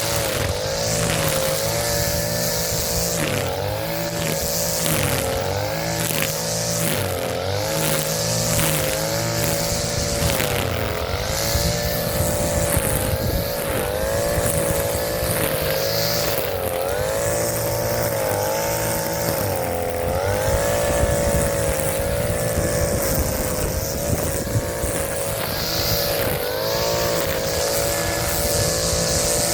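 Echo SRM-230 string trimmer's two-stroke engine running at high speed while cutting grass. Its pitch sags and recovers again and again as the line hits the grass: it bogs down under load, a sign that the new carburetor needs a little adjustment.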